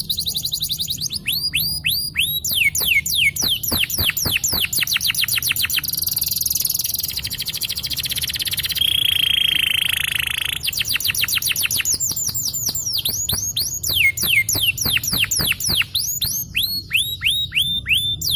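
Domestic canary singing a long song: fast trills of repeated down-slurred whistled notes, broken about nine seconds in by one held steady whistle before the trills resume.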